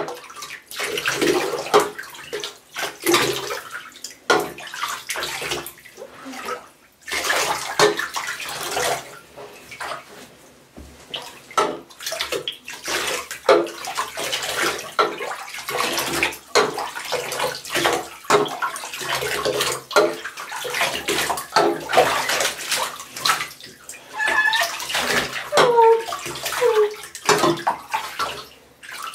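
Shallow bathwater in a bathtub sloshing and splashing, coming and going, as a wet cat standing in it is rubbed down by hand and water is scooped and poured over it with a small bowl. A few short squeaky glides sound near the end.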